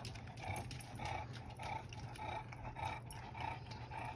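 Small dog licking whipped cream out of a paper cup: a steady run of wet laps, a little under two a second.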